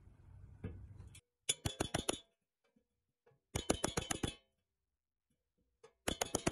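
Light, sharp taps of metal on the pressed-steel body of a 1957 Tonka toy van, struck against a rod held inside the roof to work out dents. They come in three quick runs of five or six taps each.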